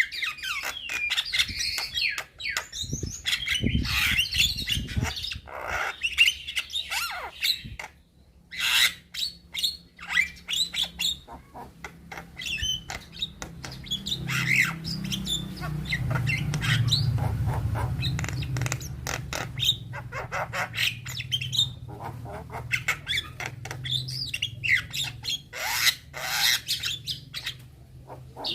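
Young Javan myna (jalak kebo) singing a long, varied run of quick whistles, harsh squawks and clicks, pausing briefly about a third of the way in. A low hum sits underneath in the second half.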